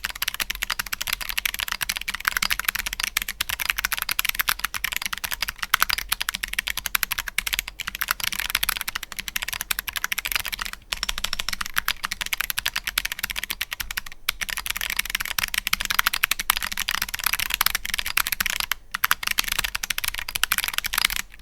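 Fast, continuous typing on a Keychron Q10 mechanical keyboard with ZealPC Clickiez switches in clicky mode, a POM plate and MT3 ABS keycaps: a dense run of sharp key clicks, with a few brief pauses.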